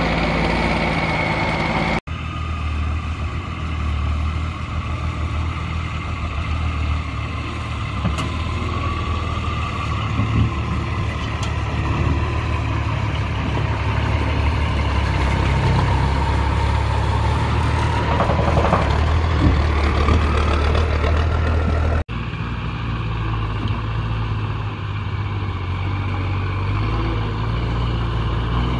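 Diesel engine of a REO M-series 2½-ton 6x6 cargo truck running steadily, with a thin whine above the engine note that wanders slightly in pitch. The sound changes abruptly twice where shots are cut together.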